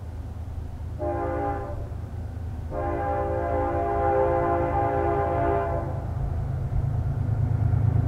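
Air horn of a BNSF diesel locomotive hauling an intermodal stack train, sounding a short blast about a second in and then a long blast of about three seconds. This is the close of the grade-crossing signal. Under the horn, the locomotives' diesel engines rumble, growing louder as the train nears.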